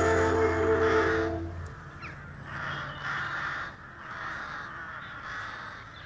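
A held music chord ends about a second and a half in, then a crow caws several times, harsh calls about one a second.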